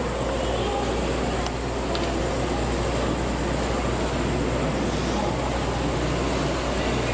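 Steady background noise of a crowd with indistinct voices over a constant low hum.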